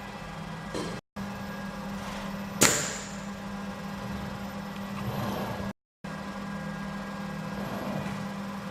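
Steady low machine hum with a single sharp metallic clack about two and a half seconds in, followed by a short hiss, typical of a pneumatic three-finger Schunk gripper actuating. The sound drops out to silence briefly twice.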